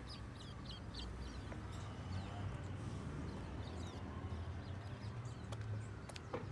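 Birds chirping in short, high calls over a steady low rumble, with a couple of sharp clicks near the end.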